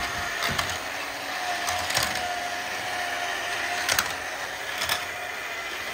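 Tomy Thomas' Race on the Rails toy train set running: its battery-driven lift whirs steadily while the small plastic engines roll along the plastic track, with several sharp plastic clicks and clacks.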